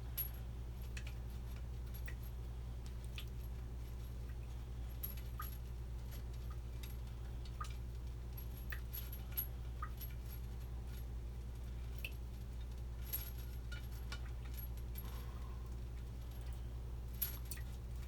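Scattered small metallic clicks and clinks of braided stainless steel faucet connectors and their fittings being handled and twisted into a faucet, with a few louder clicks. A steady low hum runs underneath.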